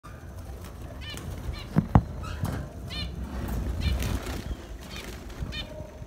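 Zebra finches calling in a cage, a series of short nasal beeps repeated every half second or so. Two sharp knocks about two seconds in are the loudest sounds, over a low rumble.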